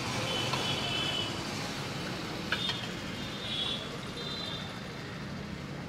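Steady street background hum with traffic, and a single sharp click about two and a half seconds in as the steel ladle knocks against the metal curry pot while serving. A few short high tones sound early on and again near the middle.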